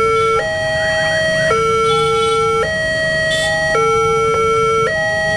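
Indonesian railway level-crossing electronic siren alarm sounding its warning as the crossing activates for an approaching train: a loud two-tone hi-lo wail that switches pitch about once a second.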